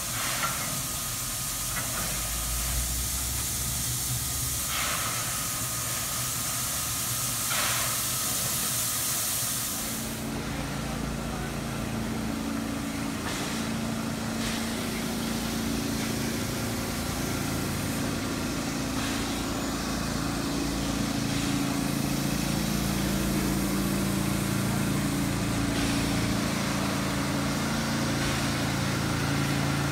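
Steam locomotives hissing steam for about the first ten seconds. Then the hiss drops away abruptly and a steady, low, engine-like hum with several held tones carries on.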